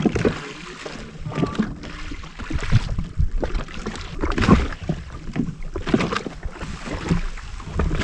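Small waves slapping and sloshing irregularly against the hull of a drifting Yamaha WaveRunner jet ski, with some wind noise on the microphone.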